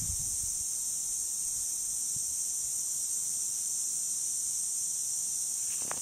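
Irrigation sprinkler spray heads hissing steadily as they mist water over a garden bed.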